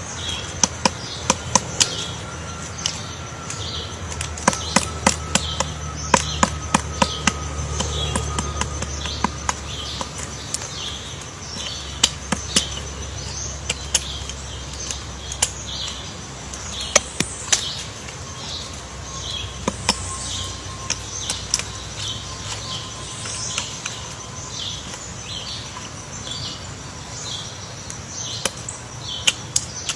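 Woodpecker tapping on wood: irregular sharp knocks, sometimes in quick runs of several a second. Behind it a bird repeats a short high chirp, a little faster than once a second.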